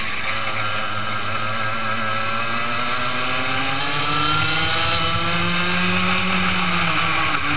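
Racing kart engine heard from the driver's seat, running at full race revs: the pitch sags through a corner, then climbs steadily as the kart accelerates down the straight, with a short dip near the end.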